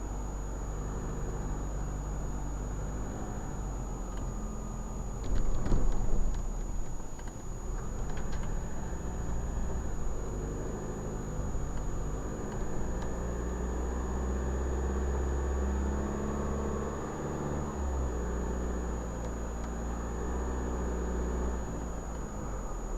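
A car driving, heard from inside through a dashcam: the engine hums steadily under tyre and road noise. About five seconds in, the rumble grows louder for a second or so, with a few sharp knocks. A thin high-pitched whine sounds steadily throughout.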